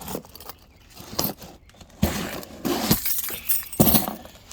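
Cardboard box being cut open with a key: scraping and tearing of packing tape and cardboard in rough bursts, starting about two seconds in and again near the end, with keys clinking.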